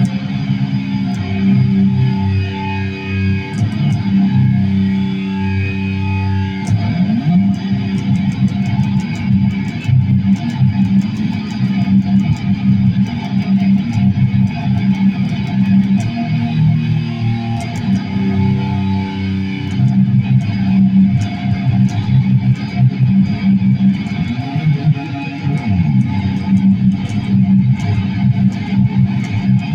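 Guitar being played: held notes for the first several seconds, then a busy run of rapidly picked and strummed notes.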